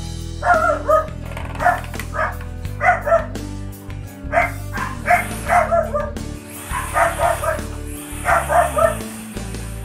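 Background music with steady held bass notes, over which a dog barks repeatedly in short groups of yips.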